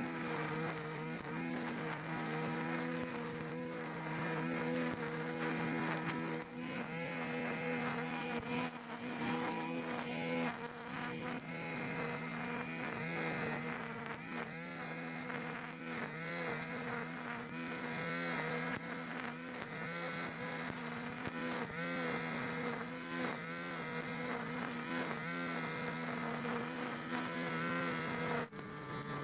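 Backpack brush cutter's small petrol engine running steadily while its 2.2 mm nylon trimmer line cuts grass. The engine note wavers a little as the line meets the grass.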